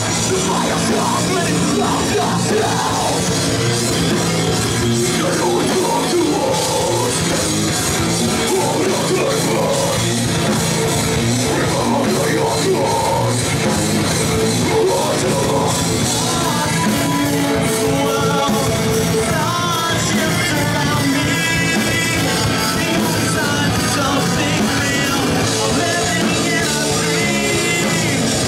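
Live heavy rock band playing at full volume, with dense distorted guitars and drums, heard as a club concert recording.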